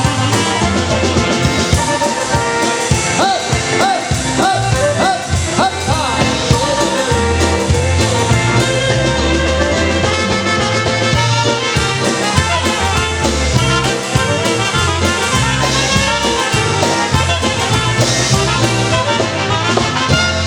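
Live polka band playing an instrumental passage, a brass lead over a steady bass beat.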